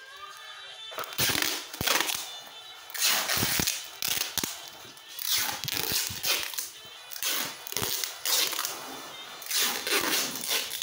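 Packing tape being torn off its roll in repeated loud, rasping pulls and pressed around a plastic-wrapped bundle of groceries, with the plastic crinkling.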